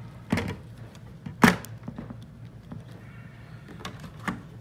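Hard plastic clicks and knocks as a John Deere ExactEmerge reflective seed sensor is slid down into the grooves of the seed meter housing. The loudest is a sharp click about one and a half seconds in, with a few lighter taps after it, over a faint low hum.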